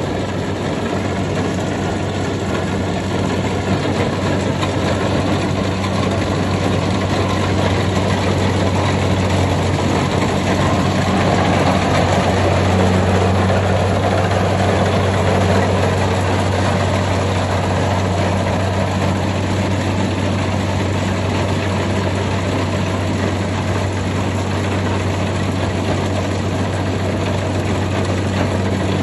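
Kubota rice combine harvester running steadily, a low diesel engine hum under a dense mechanical noise, swelling a little about halfway through.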